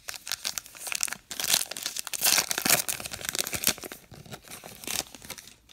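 Baseball card pack wrapper being torn open and crinkled by hand, a dense irregular crackle that is loudest about two to three seconds in and dies away near the end.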